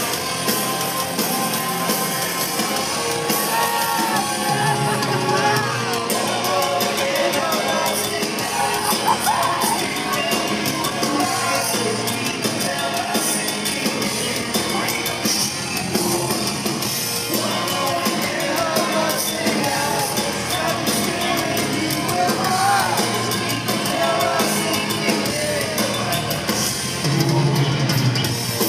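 Rock band playing live at full volume, with electric guitars, bass guitar and drum kit, heard from the audience in a large hall.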